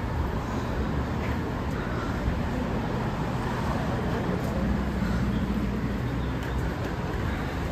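Steady city street traffic noise, with a low vehicle hum swelling about four to six seconds in.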